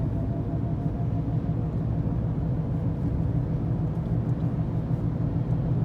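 Steady low drone from a 2014 Ford Escape's front driver-side wheel bearing at highway speed, heard inside the cabin over tyre and road rumble. A mechanic put the noise down to a worn front wheel bearing.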